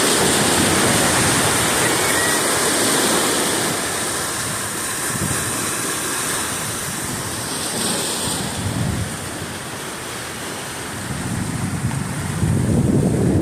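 Floodwater rushing through a dam spillway: a steady, loud noise of falling and churning water, with a low rumble swelling near the end.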